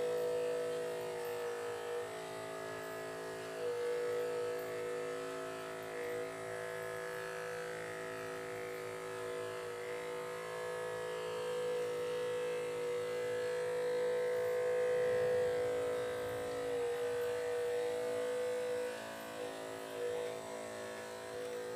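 Small 12-volt DC motor of a model RC ship running with a steady buzzing whine.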